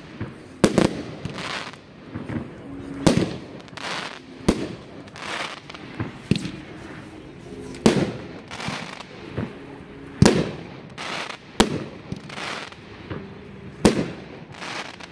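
Consumer fireworks cake firing shot after shot, a sharp bang roughly every second, with crackling between the bangs.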